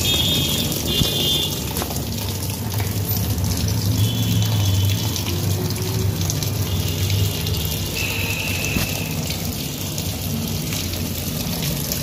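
Water pouring into the plastic wash tub of an LG semi-automatic twin-tub washing machine as it fills: a steady rush of running water.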